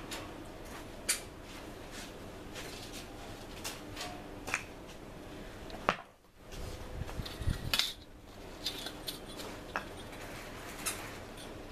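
Scattered metallic clinks and taps as steel pieces are handled against rebar, irregular and sharp, with a low rumble between about six and eight seconds in.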